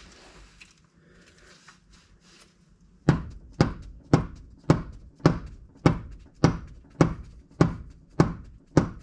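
Rubber mallet striking a car's CV driveshaft to drive it home into the differential: after a few seconds of faint handling, a steady run of about a dozen thuds, about two a second.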